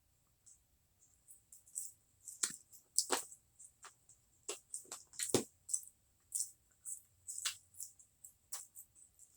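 Close-miked chewing of french fries: an irregular run of short mouth clicks, a few louder ones around the middle.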